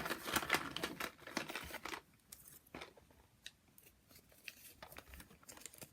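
Packaging being handled: dense rustling and crinkling for about two seconds, then scattered light clicks and taps.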